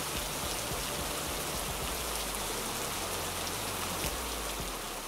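Steady crackling hiss, a sound-effect bed under an animated logo intro with fiery, ember-filled visuals.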